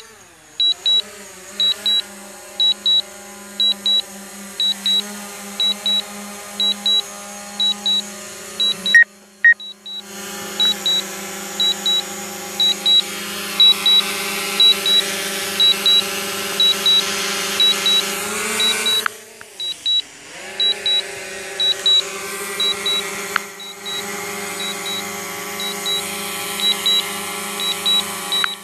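A drone's remote controller beeps in pairs about once a second as a low-battery return-to-home warning. Under the beeps is the steady hum of the drone's propellers close by, which dips in pitch and comes back a few times as the motors change speed.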